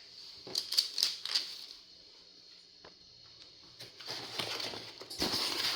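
Egg carton being handled and opened. A quick cluster of sharp clicks and taps comes about half a second in. Rustling and scraping follow over the last couple of seconds.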